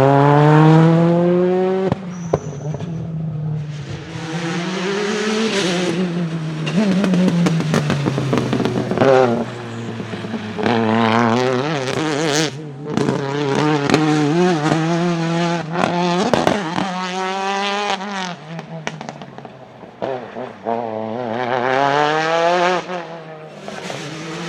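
Ford Focus WRC rally car's 2-litre turbocharged four-cylinder engine revving hard through repeated accelerations and gear changes, its pitch climbing and dropping again and again. Occasional sharp cracks from the anti-lag system come between the revs.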